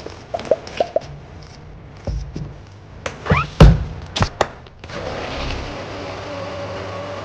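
Milk glugging out of a carton into a personal blender bottle, then a few knocks and thunks as the bottle is fitted onto the Arzum blender base. About five seconds in the small blender motor starts and runs steadily, blending the milkshake.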